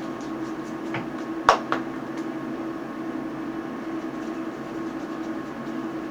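Steady hum of ultrasound equipment, broken by three sharp clicks between about one and two seconds in, the middle one the loudest.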